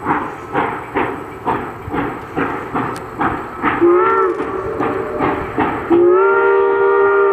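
Steam locomotive 2-8-0 No. 734 working under power, its exhaust chuffing about twice a second. About four seconds in its steam whistle gives a short blast, then a long held blast starts about six seconds in.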